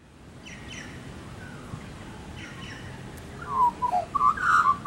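Birds calling: faint high chirps in the first three seconds, then a louder run of short call notes from about three and a half seconds in.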